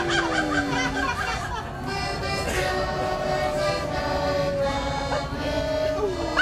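Button accordion playing a tune in held chords, with a long falling slide in pitch during the first second.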